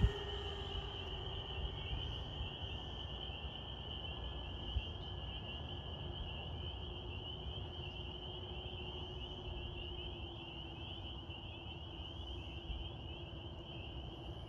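Distant electric motors and three-bladed propellers of a radio-controlled B-25 Mitchell model plane, a steady drone whose pitch slowly falls as the plane flies away. A steady high-pitched chirring runs underneath throughout.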